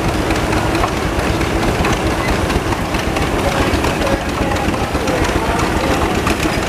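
Antique engines running together: a Case steam traction engine and a line of old farm tractors, giving a steady low rumble of fast engine pulses.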